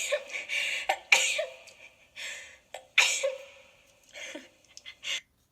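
A person sneezing three times in a row, each sneeze a sharp explosive burst dying away over about half a second, the second about a second after the first and the third two seconds later. A few shorter, quieter breaths follow near the end.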